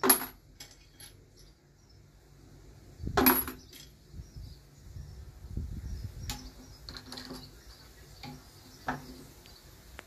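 Brass 9mm cartridge cases and metal reloading-press parts being handled: sharp metallic clinks and clicks, the loudest right at the start and about three seconds in, with lighter taps scattered between.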